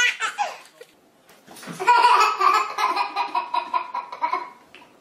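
Baby laughing hard: a long run of belly laughs starting about two seconds in, after a brief lull.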